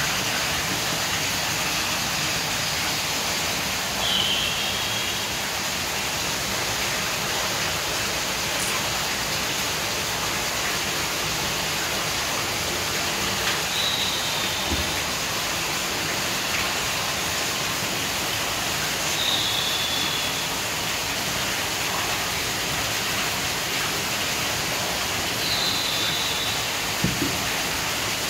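Steady rushing noise, like rain or running water, with a few brief high chirps every five or six seconds.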